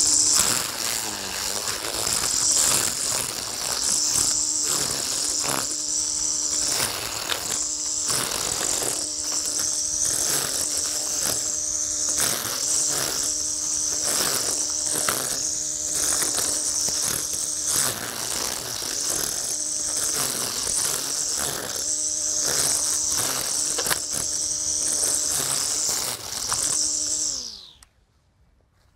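Honda battery-powered brush cutter with a nylon line head running at speed with a high whine, the spinning line crackling as it strikes through long dry grass. Near the end the trigger is released and the motor winds down to a stop.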